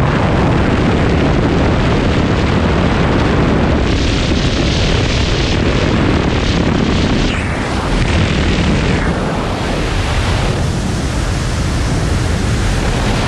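Loud freefall wind rushing over a skydiver's camera microphone, shifting in tone a few times partway through.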